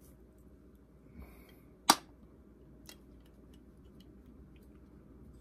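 Light plastic clicks and taps from handling a small white plastic camera mount, with one sharp click about two seconds in and a few fainter ticks around it.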